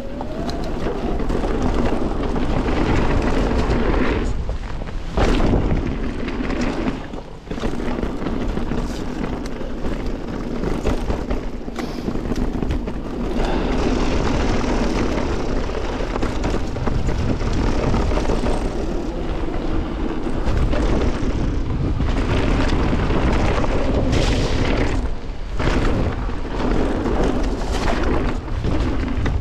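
Wind buffeting the camera microphone and the tyres of a Canyon Torque:ON electric mountain bike rolling fast over a dirt and leaf-covered trail: a steady, loud rushing rumble that eases off briefly a few times.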